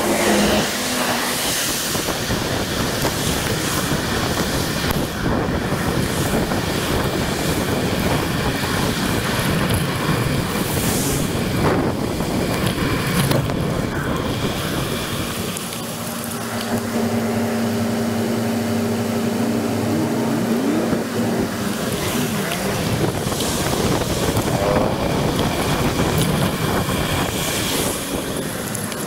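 Road traffic on wet streets: vehicles passing, with the hiss of tyres on wet tarmac and wind buffeting the microphone. A steady low engine hum sets in about halfway through and returns near the end.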